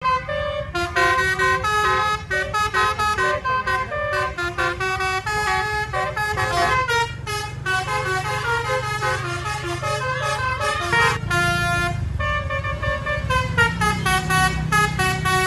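A bus's multi-tone telolet (basuri) horn plays a quick melody, note after note, with a brief break a little past the middle, over the low rumble of the bus's engine.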